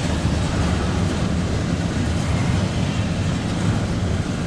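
Norfolk Southern intermodal freight train rolling past, a steady rumble of wheels on the rails.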